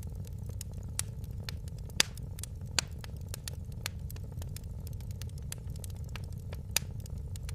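Wood fire in a fireplace crackling: a steady run of small, sharp pops and snaps, several of them louder, over a steady low rumble.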